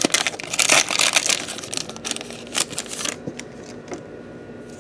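Foil wrapper of a Pokémon Hidden Fates booster pack crinkling as it is torn open, then quieter rustling and a few clicks of the cards being handled from about three seconds in.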